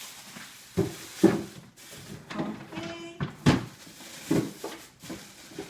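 Vegetables and containers being handled in a refrigerator's crisper drawer: a few sharp knocks and bumps with lighter rustling between them.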